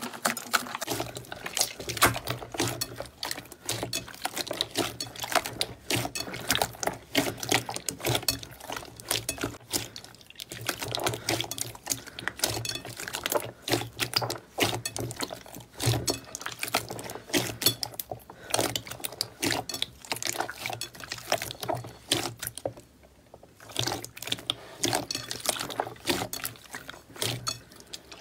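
Thick, glossy slime squeezed and kneaded by hand, giving a dense run of wet squelches and crackling pops from trapped air, with a brief pause about five seconds before the end.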